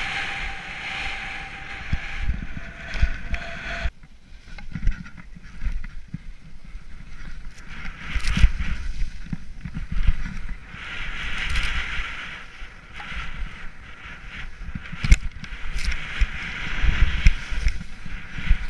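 Wind rushing over the microphone of a skier descending fast through powder, with skis hissing through the snow and frequent low thumps, two sharp ones about eight and fifteen seconds in.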